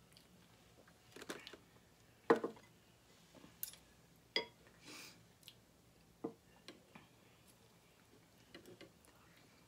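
Scattered clinks and taps of a spoon, bowls and a small saucepan being handled on a table, with soft eating sounds between; the loudest knock comes a little past two seconds in.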